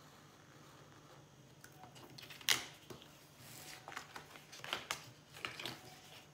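Sheets of printed paper rustling and crackling as they are lifted and shifted, with a sharp crackle about two and a half seconds in and several smaller ones after it.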